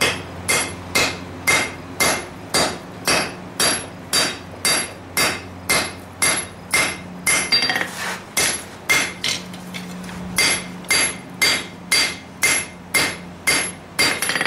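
Blacksmith's hammer striking a hot lawn mower blade on the anvil, about two blows a second, each with a bright metallic ring, with a short pause about halfway. A steady low hum runs underneath.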